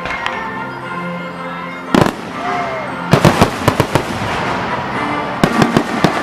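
Fireworks bursting over music: a sharp bang about two seconds in, then a quick run of bangs and crackles a second later, and another cluster near the end. Music with held notes plays throughout.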